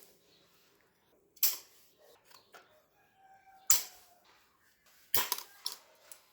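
Sharp clicks and knocks of small hard parts being handled and set down on a work surface: one about a second in, a louder one past the middle, and a quick run of smaller clicks near the end.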